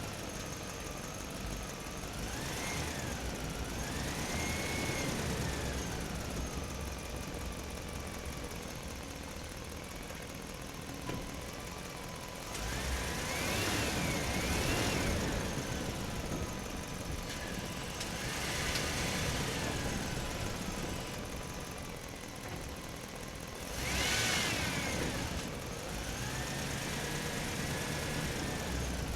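Truck engine running on the road, its pitch rising and falling several times as it speeds up and eases off.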